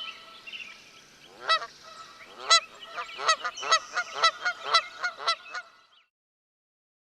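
Geese honking: a run of short, nasal honks that come faster and faster, then stop about six seconds in.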